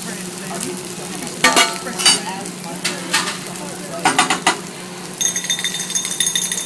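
Vegetables sizzling as they hit a hot teppanyaki griddle, with a metal spatula clanking sharply against the griddle and plate several times. A fast ringing rattle starts about five seconds in.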